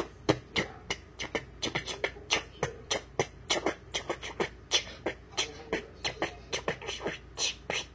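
A person beatboxing a homemade theme beat: quick, sharp mouth clicks and pops, about four or five a second in an uneven rhythm.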